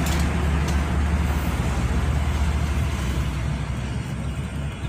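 Steady rumble of road traffic passing nearby, with no single event standing out, easing slightly near the end.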